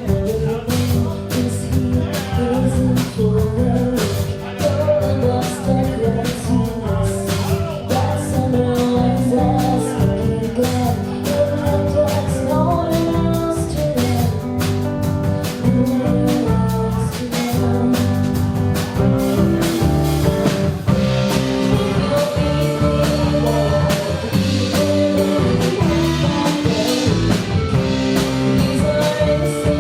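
Live rock band playing a song: drum kit keeping a steady beat under guitar, with a singer.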